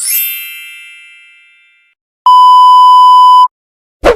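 Sound effects in sequence: a bright chime strikes and rings away over about two seconds, then a steady electronic beep of one pure tone lasts about a second, then a short sharp hit comes near the end.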